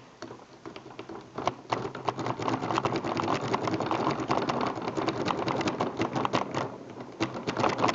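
Rapid metallic clicking and scraping of a twin peak rake scrubbing in and out of the keyway of an American Series 100 five-pin padlock, its pins chattering against the rake under heavy tension. It starts about one and a half seconds in and keeps up almost to the end.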